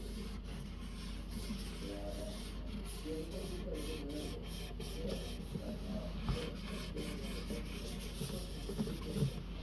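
Quick, repeated back-and-forth rubbing on a guitar, with a faint wandering pitched tune underneath.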